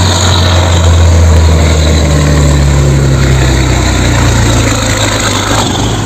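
Diesel engine of a container truck running steadily close by, a deep steady hum under road and engine noise.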